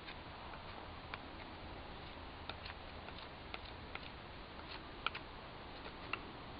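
Bushcraft knife, a Condor Bushlore, whittling a wooden stick: irregular small clicks as the blade bites and snaps off shavings, the sharpest two about five and six seconds in.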